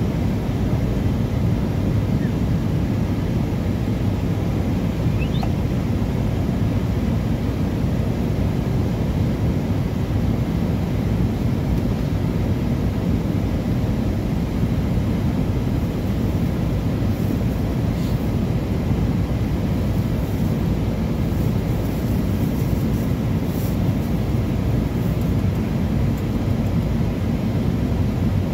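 Steady low rumble of a running car, heard from inside the cabin.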